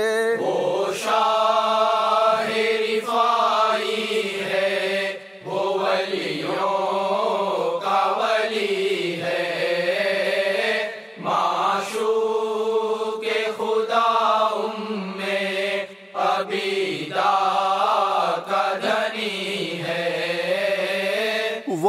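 Men's voices chanting an Urdu Sufi devotional qasida without drums, in long wavering phrases with a few short breaks between them.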